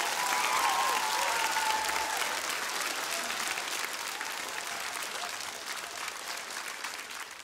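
Audience applauding, dense steady clapping with a few shouts and whoops over it in the first two seconds; the applause fades away gradually towards the end.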